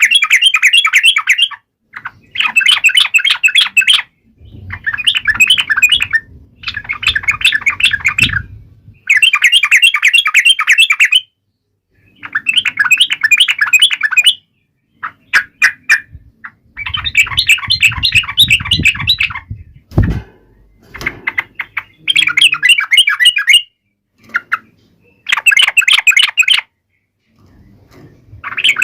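Yellow-vented bulbul singing a fast, chattering song in repeated bursts of one to two seconds with short pauses between them. A low rumble runs under some phrases, and a dull thump comes about 20 seconds in.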